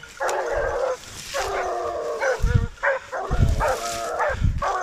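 Hunting dogs baying at a wild boar held at bay: continuous barking in long, repeated calls with short breaks between them. A few low thumps come in the second half.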